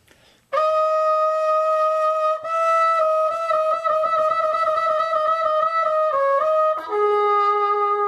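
B-flat trumpet playing a held written F, then a fast half-step trill between F and F-sharp from about two and a half seconds in. Near the end it turns down through a couple of quick notes and settles on a held lower note.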